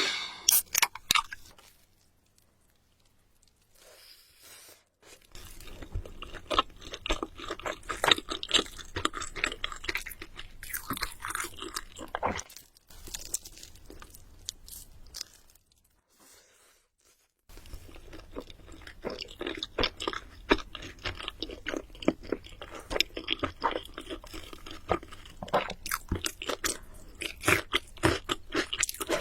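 A person biting and chewing crunchy fried chicken with loud, close crunches. It starts a few seconds in, pauses past the middle, then resumes more densely.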